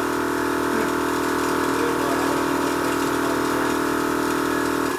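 Air-ride suspension compressor running steadily with a droning whine, then cutting off suddenly at the very end.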